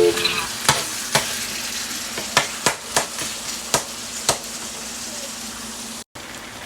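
Food sizzling in a hot pan, with a cooking utensil clicking against the pan about eight times at uneven intervals as it is stirred.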